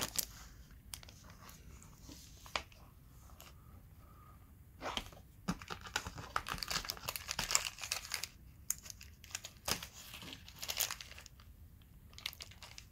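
Crinkling of thin plastic bags holding RC shock absorbers and coil springs as they are handled. The crackles are sparse at first and come thicker from about five seconds in.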